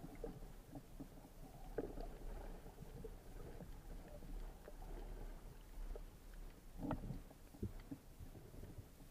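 Muffled underwater noise through a waterproof camera housing: a low, steady rumble of moving water with a few faint knocks and clicks, two of them sharper, about two seconds in and about seven seconds in.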